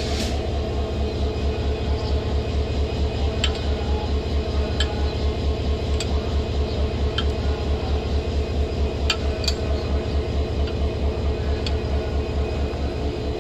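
Hyundai Rotem diesel locomotive idling at a standstill, a deep steady throb pulsing several times a second under a constant hum. Sharp metallic clinks come every second or two as its coupler is worked by hand after failing to latch onto the coach.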